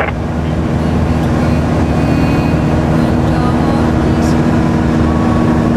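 Piper PA-28's piston engine and propeller droning steadily under cruise or climb power, heard inside the cockpit as an even, low hum.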